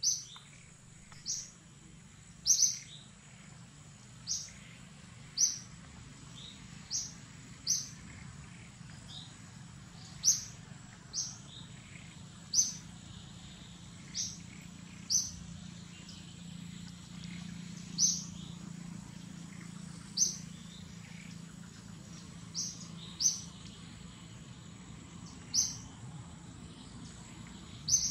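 A bird chirping over and over in short, high notes, about one every one to two seconds, over a steady high-pitched tone and a faint low hum.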